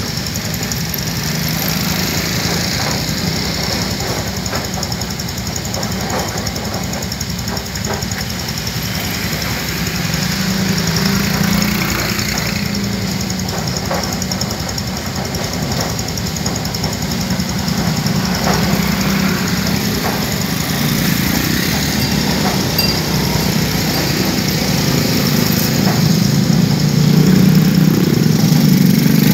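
Several small motorcycle and scooter engines idling and running at low speed, swelling louder about ten seconds in and again near the end as more bikes come close. Scattered knocks from the wooden deck planks as the bikes roll over them.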